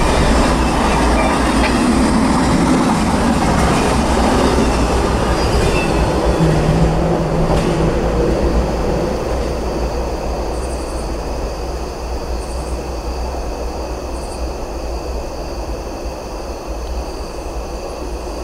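Tail end of a Norfolk Southern double-stack intermodal freight train rolling past, the cars running loud over the rails. The noise dies away about halfway through as the last car passes, leaving a quieter steady background.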